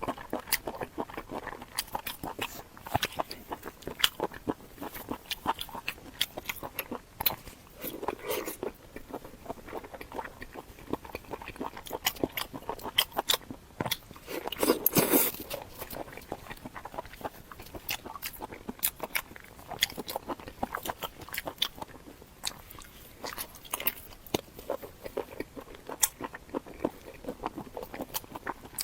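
Someone biting and chewing pig's ear, the cartilage crunching in a rapid, irregular run of clicks. There is a louder, denser burst of crunching about halfway through.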